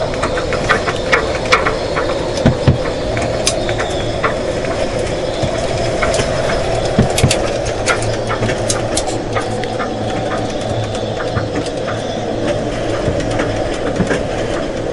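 High wind buffeting a sailboat stored out of the water on jack stands: steady wind noise with frequent small rattles and clicks from the shaking boat and its fittings.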